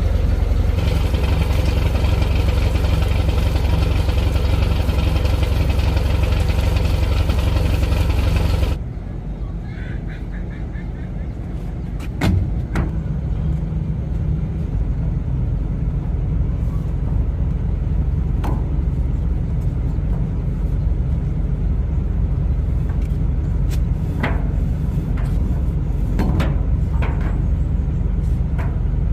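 Boat engine running steadily at speed. About a third of the way in the sound drops suddenly to a quieter low rumble, with a few sharp knocks later on.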